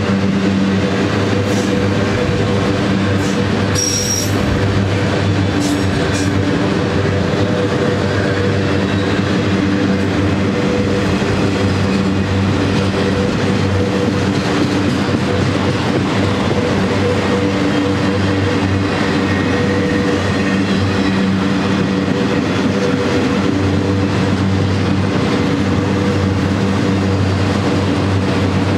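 Long freight train of autorack cars rolling past at speed: a steady rumble and rattle of steel wheels on the rails, with a few clacks over rail joints and a brief high wheel squeal about four seconds in.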